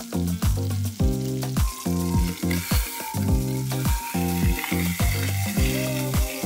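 Chicken drumsticks and thighs sizzling in hot oil in a cast iron skillet as they brown, under background music with a steady beat of about two thumps a second.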